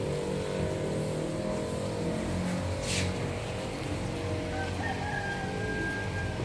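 A rooster crows once near the end, a drawn-out call rising then held, over a steady low mechanical hum. A short hiss comes about halfway through.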